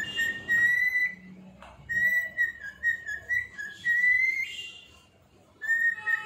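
Cockatiel whistling a tune in long held notes that waver and step around one pitch, breaking off briefly twice.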